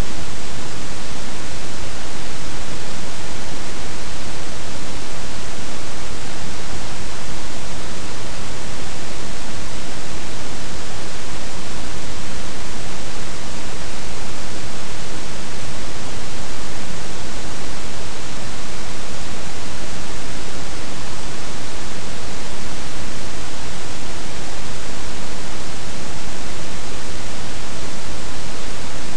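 Loud, steady, unchanging hiss spread evenly from deep to high pitches, with no other sound breaking through.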